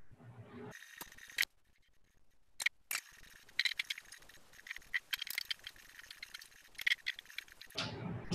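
Quick, irregular run of clicks, knocks and rattles as small metal tripod stands and clamps are handled and set up, starting about a second in. The handling is fast-forwarded.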